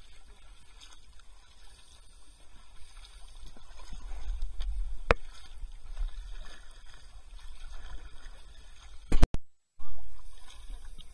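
Kayak paddles dipping and splashing in river water, over a low rumble. A single sharp click about five seconds in, and near the end the sound cuts out for half a second, then returns with a short loud burst.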